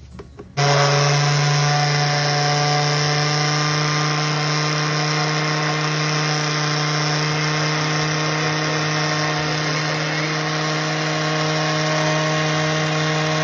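Countertop blender switched on about half a second in and running steadily at one speed, beating raw eggs as the first stage of homemade mayonnaise.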